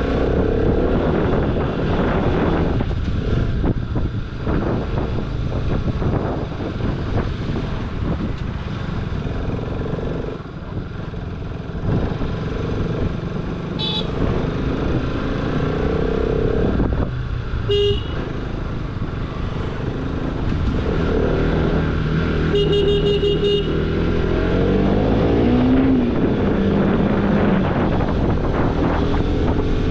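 Motorcycle running on the road with steady engine and wind noise, heard from the rider's position. Vehicle horns sound briefly twice around the middle, then a longer, warbling horn about two-thirds of the way through.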